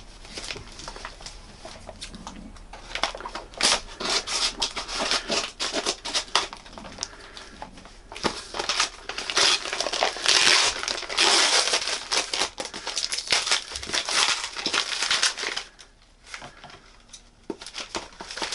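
Paper wrapping of a postal book parcel being torn open and crumpled by hand, a dense run of crinkling and tearing that is busiest about halfway through and eases briefly near the end.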